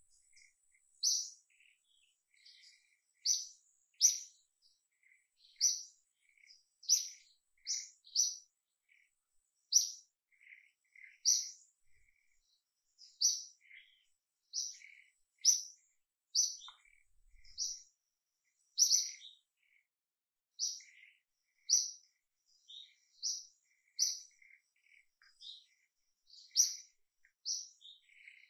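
A bird chirping: short, high, sharp chirps about once a second, with fainter, lower twitters between them.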